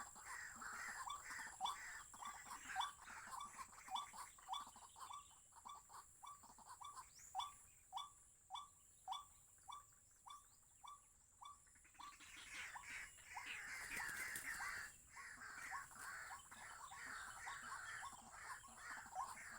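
White-breasted waterhen calling: a monotonous run of short rising notes, about two a second, that breaks off about twelve seconds in and starts again near the end. Other birds chirp and a steady high whine runs behind it.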